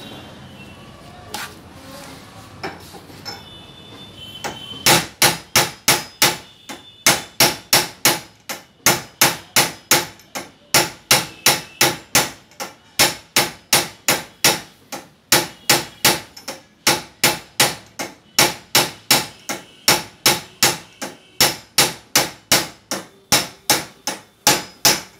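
Rapid metal-on-metal hammering on a mono shock absorber, a steel bar striking its metal body at about three blows a second in runs with short pauses, starting about five seconds in after a few faint knocks.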